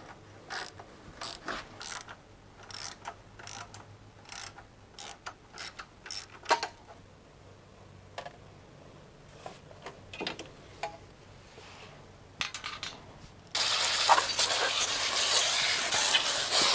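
A ratchet clicking in short bursts as the bolts of a motorcycle's radiator guard are undone. About thirteen seconds in, a hose starts spraying water, a steady hiss louder than the clicking.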